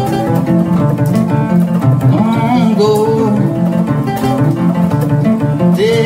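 Kora and acoustic guitar playing together, a flowing pattern of plucked notes over a full low register.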